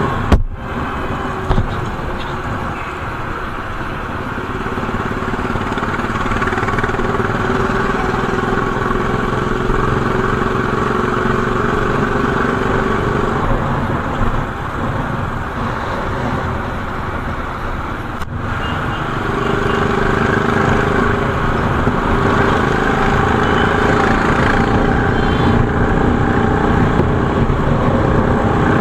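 Royal Enfield Bullet's single-cylinder engine running on the move, its steady thudding beat rising and falling in pitch as the speed changes.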